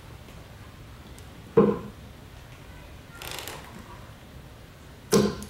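Two steel-tip darts thud into a bristle dartboard, one about a second and a half in and the second about three and a half seconds later. Each is a short, sharp hit.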